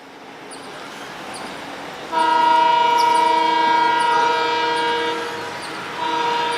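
WDM3D diesel locomotive's horn sounding a long steady multi-tone blast about two seconds in, and after a short dip a second blast near the end. The approaching train's rumble grows louder before the horn.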